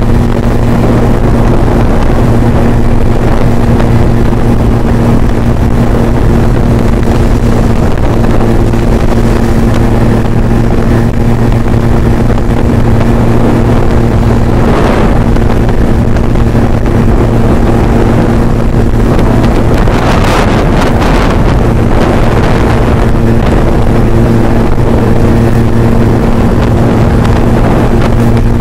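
Scooter engine running at a steady cruising speed, its pitch holding constant, with wind rushing over the microphone. Two brief swells of rushing noise come about fifteen and twenty seconds in.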